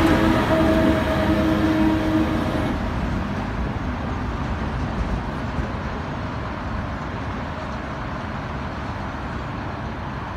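Diesel locomotive hauling a train of tank wagons, its engine droning loudly as it passes close by. After about two and a half seconds the engine tone drops away and the train's rumble fades steadily as it pulls off.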